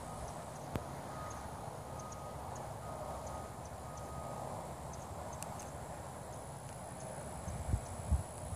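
Outdoor ambience with a low, uneven wind rumble on the microphone, a single click about a second in and a few soft bumps near the end.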